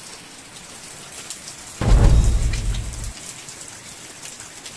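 Water dripping and trickling inside a broken wall cavity, a steady patter of many small drips. About two seconds in, a deep rumble lasts about a second and is the loudest sound.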